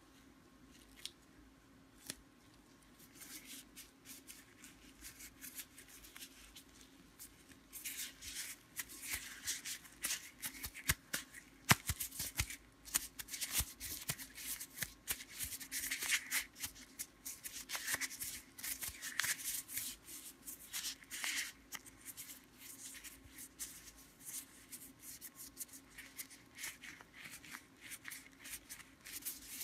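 Clear plastic disposable glove crinkling and rustling as the gloved fingers rub and move close to the microphone, in fitful irregular bursts that get busier from about eight seconds in.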